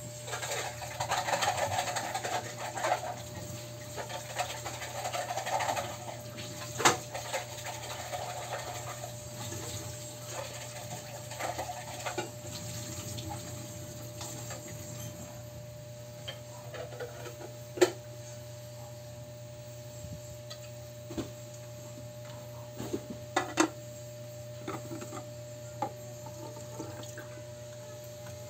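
Tap water running on and off into a sink while a plastic juicer cup is washed, for about the first twelve seconds. Then a scattering of sharp knocks and clatter as the parts are handled, with a steady faint hum underneath.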